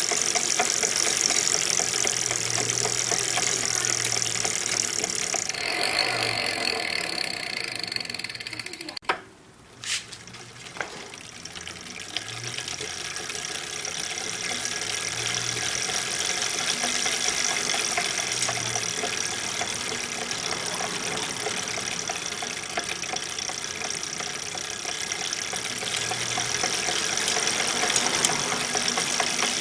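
A2B Metro G2 electric bike being pedaled, its drivetrain giving a steady running noise with a recurring low knock every few seconds, which the owner suspects comes from an under-lubricated stock freewheel. The noise drops away briefly with a few sharp clicks about nine seconds in, then resumes.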